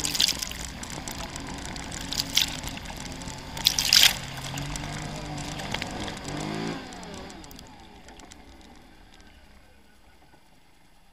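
Quad bike (ATV) engine running as it drives through deep water, with loud splashes about a second, two and a half seconds and four seconds in. The engine revs up briefly and then dies away after about seven seconds.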